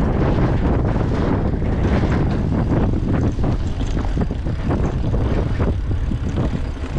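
Wind buffeting the microphone as a steady, loud low rumble, with scattered short knocks and rattles through it.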